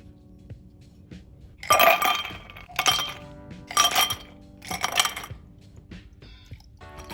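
Four ringing clinks of kitchen dishware, about a second apart, over background music.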